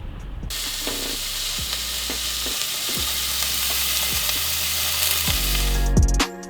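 A steady, dense hiss that starts suddenly, grows slowly louder and cuts off abruptly near the end, over low bass notes that step from one pitch to another.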